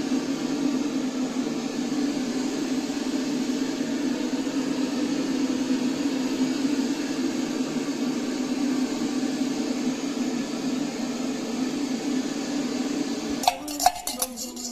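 A small motor running with a steady whirring hum, which cuts off abruptly near the end, followed by a few sharp clinks.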